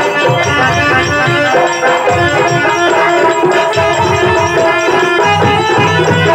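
Live Bayalata folk-theatre accompaniment: a harmonium playing a melody in held notes over hand-drum strokes.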